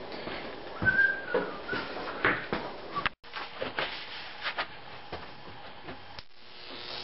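Knocks and clicks of handling as the sword is set up, with a brief high squeak about a second in. Near the end a steady electric buzz and hiss starts: the 15,000-volt Jacob's-ladder arc between the sword's two wire rails beginning to run.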